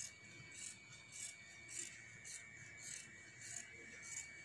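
Scissors cutting through petticoat cloth: faint, evenly spaced snips, about two a second.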